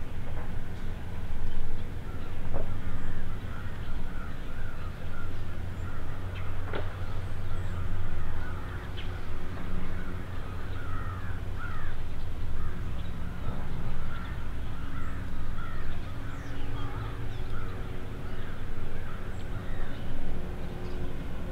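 Many short bird calls repeating throughout, over a steady low hum.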